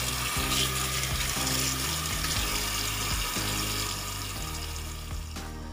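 Kitchen tap water running in a steady stream onto soaked pieces of gatot (dried cassava) in a plastic colander, rinsing them clean. Background music plays underneath.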